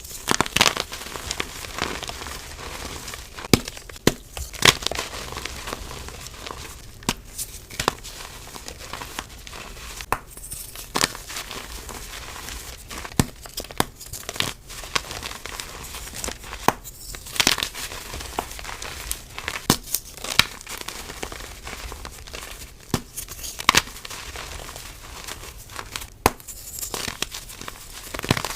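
Soft reformed gym chalk blocks being crushed, a steady run of irregular crisp crunches and crackles with louder snaps every few seconds.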